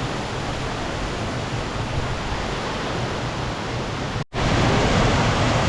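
Steady rush of water falling at a waterfall. There is a brief dropout about four seconds in, after which the rushing is slightly louder.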